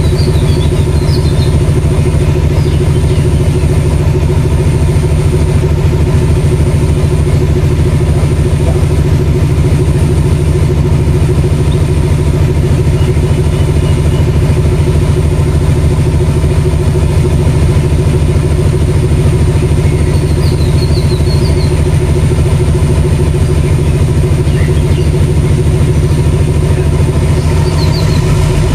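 Class M9 diesel-electric locomotive idling while standing at the platform, its engine a loud, steady low hum that does not change in pitch. A few short high chirps come through about a second in and again about twenty seconds in.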